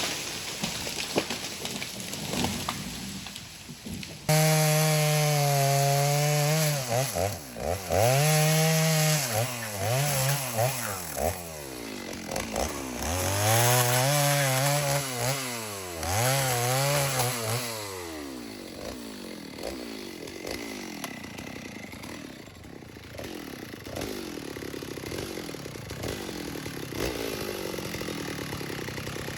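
Stihl MS290 two-stroke chainsaw cutting wood. It comes in loudly about four seconds in, its engine pitch dropping and climbing back over and over as it loads in the cut, then runs quieter and less evenly through the second half.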